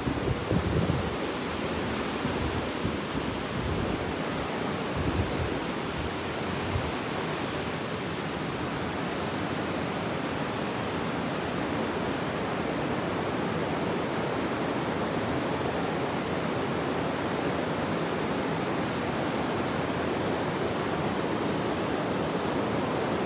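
Steady rush of a stream running among boulders, with a few low bumps in the first several seconds.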